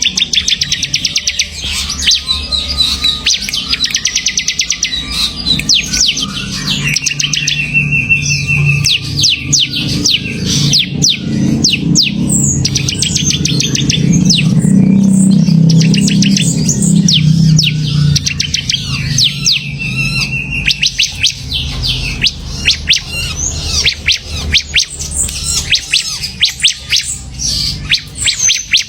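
A ciblek semi, a small prinia kept as a songbird, singing busily: fast runs of high, sharp chirps and rattling trills with hardly a pause. A low hum runs underneath and swells in the middle.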